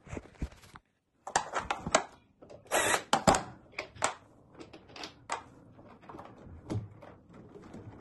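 Irregular clicks, light knocks and rattles of plastic and metal parts handled by hand at a washing machine's motor and its wiring harness, with a louder cluster of knocks about three seconds in.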